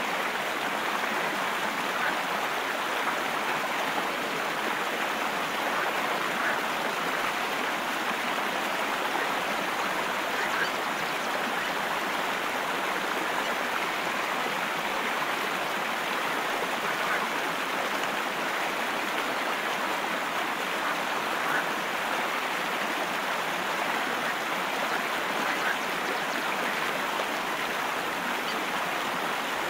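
Steady rushing of running water, even and unbroken, with faint short high ticks every few seconds.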